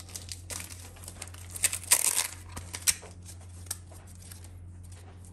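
Forced Induction Interchillers thermal blanket, a foil-faced sticky-backed heat-shield sheet, crinkling and rustling as it is unwrapped and unfolded by hand, loudest about two seconds in. A steady low hum runs underneath.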